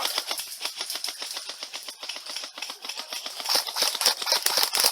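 Rapid, dense clicking and snapping of airsoft guns firing, with shots packed close together and no pause.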